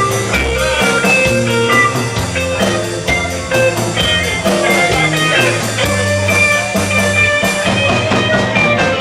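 Sixties-style rock band playing: guitar lines over bass notes and a steady drumbeat.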